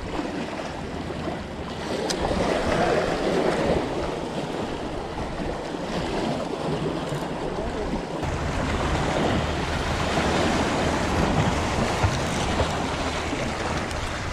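Small waves washing and splashing against the rocks of a jetty, with wind buffeting the microphone, heavier from about eight seconds in.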